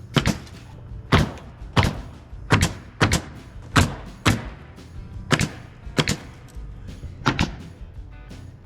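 Nails being driven into the siding trim: a run of sharp strikes, roughly one or two a second at uneven spacing, over a low steady hum.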